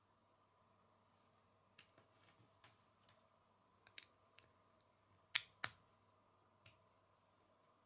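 Small plastic Lego pieces clicking and snapping together as they are pressed into place: a few light clicks, a sharp one about halfway, then the loudest two in quick succession a little later.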